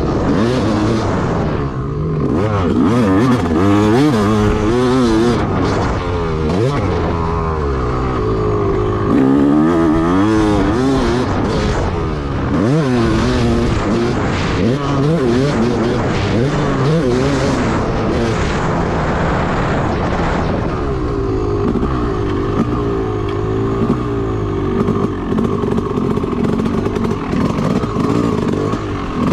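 Yamaha YZ250 two-stroke motocross bike being ridden hard on a track, its engine note sweeping up and down again and again with throttle and gear changes, then holding steadier for the last third.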